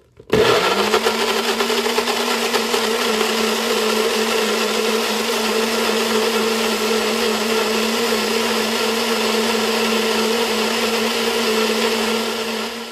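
NutriBullet personal blender motor running, blending a soft banana, egg yolk and oil mixture. It spins up with a quick rising whine about a third of a second in, runs at a steady pitch, and begins to wind down near the end.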